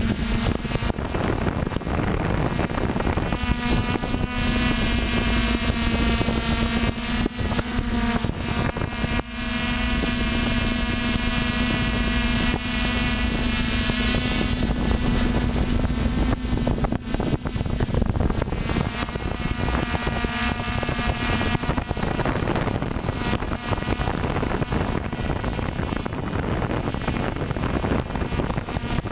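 Drone's electric motors and propellers whining steadily, picked up by the onboard camera under heavy wind noise on the microphone. The steady hum fades out a little past two-thirds of the way through, leaving mostly the rush of wind.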